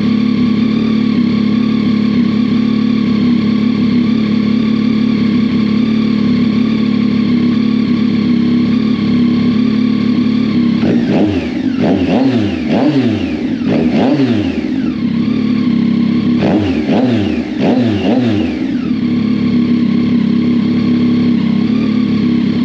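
2022–23 Yamaha XSR900's 890 cc inline-three, breathing through a Kelpi Custom Moto shorty exhaust, idling steadily and loud. About halfway through it is revved in two bursts of quick throttle blips, three or four each, before it settles back to idle.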